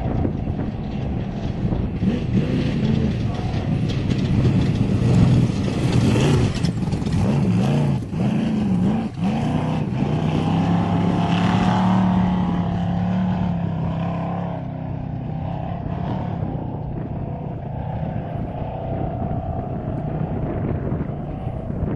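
Off-road race vehicle's engine running hard, loudest around the middle. It revs up and down quickly for a couple of seconds, then settles to a steadier, slightly quieter drone toward the end.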